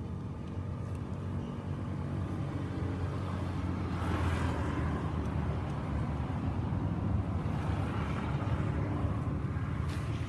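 Motor vehicle engine running steadily, with road noise swelling about four seconds in and again around eight seconds as traffic passes.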